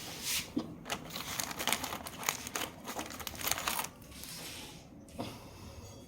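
A plastic snack packet crinkling and rustling as it is handled. The crackling is dense for about four seconds, then dies down to quieter handling.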